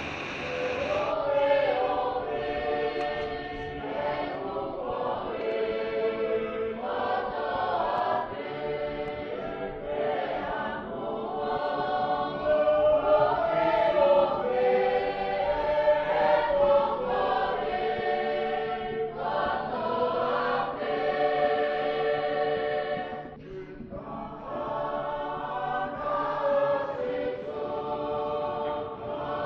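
A choir singing in harmony, holding long chords, with a short break about 23 seconds in before the singing resumes.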